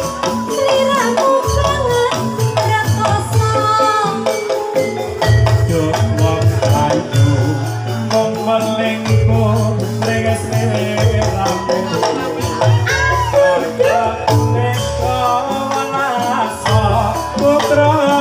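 Live Javanese jathilan accompaniment music: a gamelan-style ensemble with sustained metallic pitched tones over a driving, repeating drum beat and busy percussion strokes.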